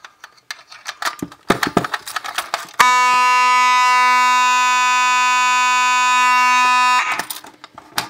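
Keys and the metal pull-station cover clicking and rattling as it is unlocked and opened. About three seconds in, a Faraday 6120 fire alarm horn sounds one loud, steady, buzzy tone for about four seconds and then cuts off abruptly, followed by more handling clicks.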